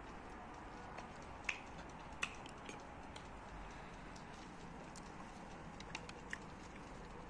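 Faint steady background hiss with a few short soft clicks, the two clearest about a second and a half and two seconds in, then two fainter ones near the end.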